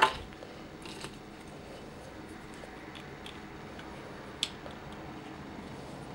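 Faint handling noise and small plastic clicks as a blaster accessory is worked into a plastic transforming robot figure's hand, with one sharper click about four and a half seconds in.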